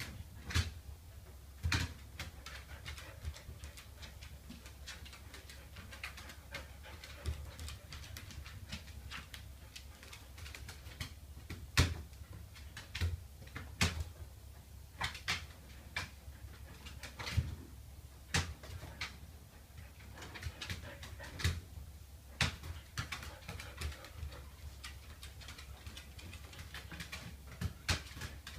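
A balloon being batted and knocked about by a pet: irregular taps and bumps, a few of them sharp and loud, over a low steady hum.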